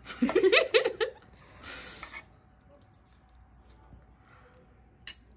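A short wordless vocal sound from a person in the first second, then a brief hiss about two seconds in and a single click near the end.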